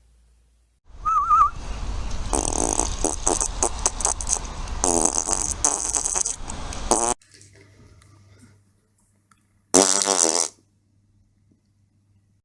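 Farts: a long, rasping stretch lasting several seconds, then a single short one near the end.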